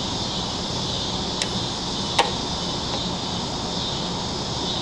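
Steady outdoor background noise with a constant high insect buzz. Two light, sharp clicks come about midway as the new head gasket is handled and set onto the engine block.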